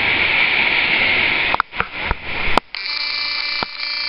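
Steady rush of ocean surf and wind on the microphone. About a second and a half in it breaks into a few clicks and dropouts, then a steady electronic buzz of several fixed tones for about a second and a half.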